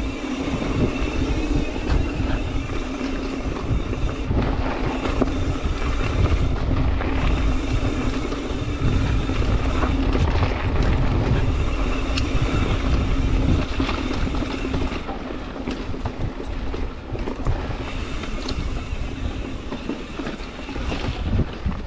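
Mountain bike rolling over rough trail, heard from the bike or rider: tyre rumble and a steady clatter of small rattles, with wind buffeting the microphone and a steady low hum underneath.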